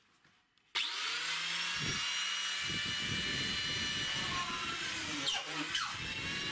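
Cordless drill motor starting about a second in and running steadily at high speed with a high whine.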